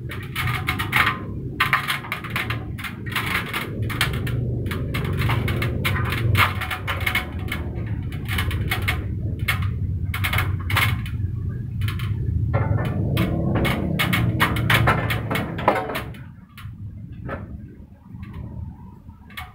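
Sheet-metal casing of an air-conditioner outdoor unit clanking and scraping against steel wall brackets as it is set down and shifted into place, many irregular clinks and knocks over a steady low rumble. The handling eases off about three-quarters of the way through, leaving a few scattered clicks.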